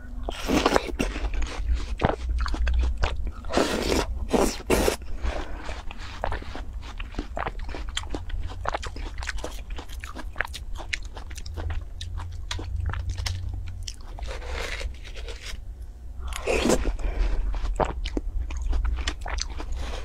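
Close-miked biting and chewing of juicy watermelon flesh: wet crunching and crackling throughout, with the spoon scraping into the melon. Louder bouts of crunching come just after the start, around four seconds in, and near the end.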